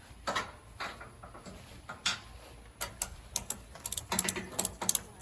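A few separate scraping knocks, then a quickening run of sharp clicks and taps, several a second in the last couple of seconds, from hands and tools working on wooden boards.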